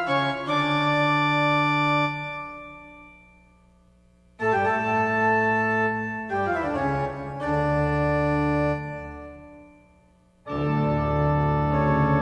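Organ-like keyboard music: long sustained chords that start abruptly and die away over a few seconds, with a short downward slide in pitch in the middle.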